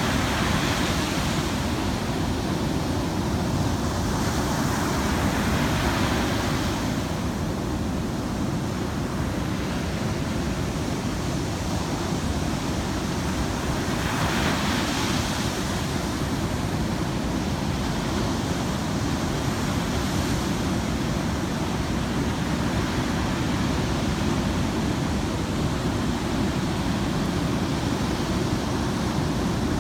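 Heavy ocean surf breaking on the shore: a constant roar of white water, swelling into a brighter hiss as waves crash, three times.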